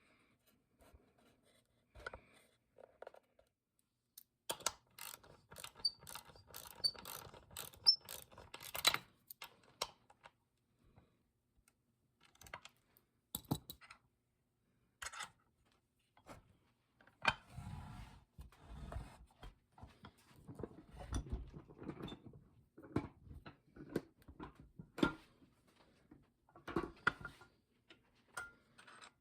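Work on the restored Simplex #400 bench vise: a quick run of mechanical clicks, then irregular knocks and handling of metal parts.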